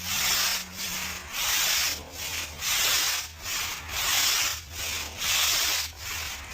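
Patio paving being worked in rhythmic back-and-forth strokes: a hiss roughly every two-thirds of a second, alternate strokes stronger and weaker, over a steady low hum.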